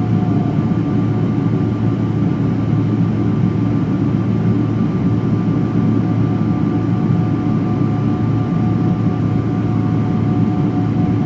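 Jet engine noise of a Boeing 777-200LR: a loud, steady low drone with two faint, even whine tones above it, unchanging throughout.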